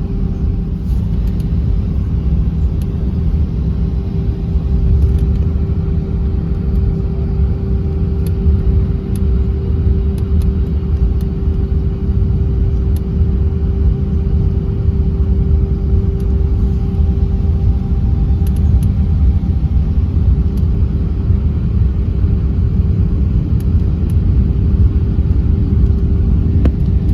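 Cabin noise inside an Airbus A319 taxiing: a loud, steady low rumble with a constant hum tone running through it.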